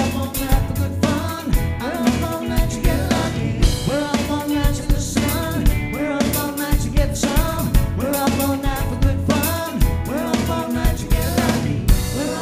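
Cover band playing an upbeat song: a drum kit keeping a steady beat with snare and bass drum, under a band and a singer's lead vocal.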